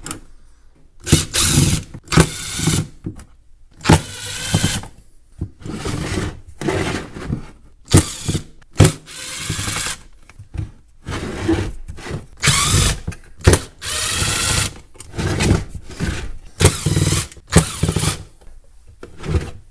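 Ridgid cordless driver backing screws out of a charger's metal case, running in many short bursts with pauses between them.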